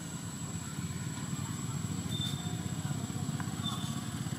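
A low, steady engine drone with a fast even pulse, like a motor idling, under a thin high steady whine; two faint short chirps come about two seconds and three and a half seconds in.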